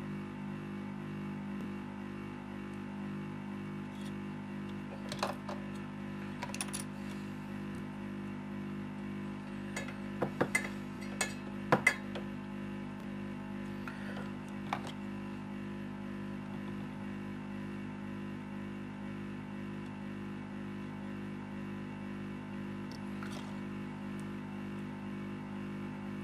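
Steady hum with a scatter of light, sharp clicks and taps from a soldering iron and desoldering braid working on a phone's circuit board, most of them about a third to halfway through.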